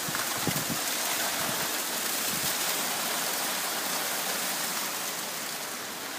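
Heavy rain pouring down in a steady, dense hiss, with a few faint knocks early on.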